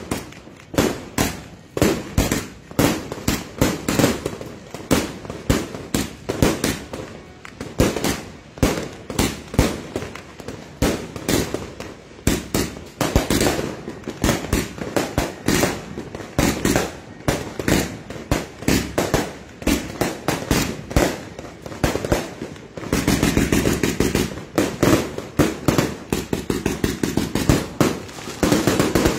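Multi-shot consumer fireworks firing in rapid succession: sharp reports several a second. A denser, faster run of shots comes near the end.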